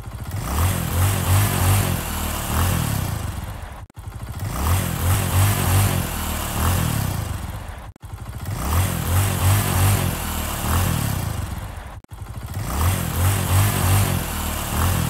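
A recorded engine revving sound, looped: the same four-second clip plays four times in a row, each time cut off by a brief gap.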